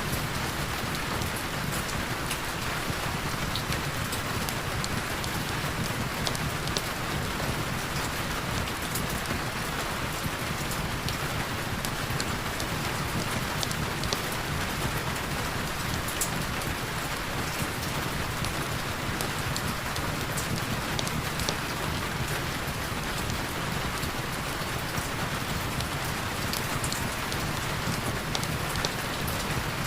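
Heavy rain falling steadily, a dense even hiss with scattered sharp ticks of individual drops and a low steady rumble underneath.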